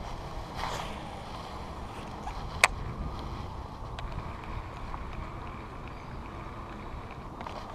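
Steady low wind rumble on the microphone, with one sharp click about two and a half seconds in and a fainter one a second or so later.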